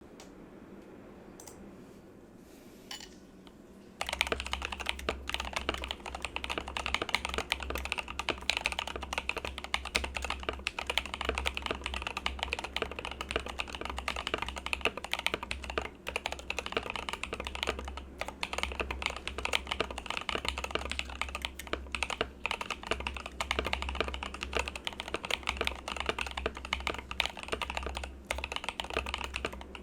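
Typing on a Rama U80 Port mechanical keyboard fitted with Raed v2.1 switches: after a few light clicks, fast, continuous key strokes begin about four seconds in.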